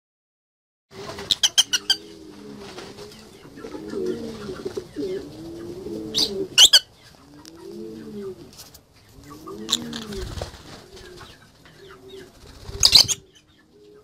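Birds calling: low cooing calls that rise and fall, repeating every second or two, with a few short, shrill squawks cutting in, a quick run of them about a second in and louder ones toward the middle and near the end.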